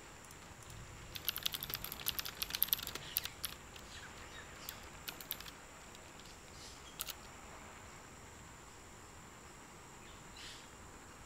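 Computer keyboard typing: a quick run of key clicks, then a few scattered key presses, the last one a single key strike. Underneath is a faint steady hiss with a thin high whine.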